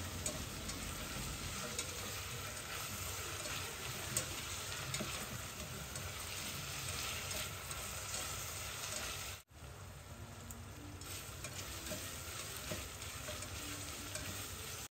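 Sliced onions with cashews and curry leaves frying in oil in a stainless steel pot, stirred with a spatula: a steady sizzle that breaks off for an instant about two-thirds of the way through.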